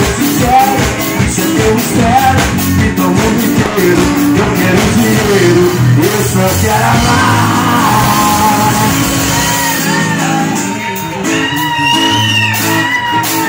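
Live band of acoustic guitar, drum kit and male singing. About ten seconds in the drums drop back and high held notes ring out to the end.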